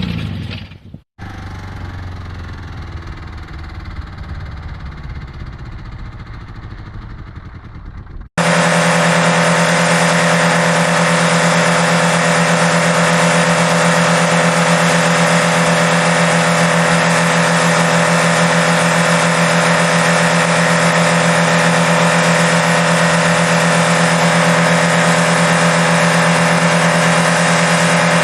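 Car engine running. After a brief dropout it runs quieter, then a sudden cut about eight seconds in brings a loud engine held at one steady speed for the rest.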